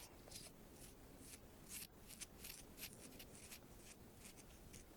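Faint, quick scratching strokes on a microphone, several a second, irregular and hissy.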